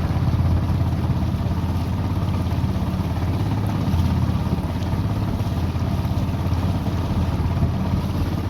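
Small riverboat's engine running steadily under way, a constant low hum.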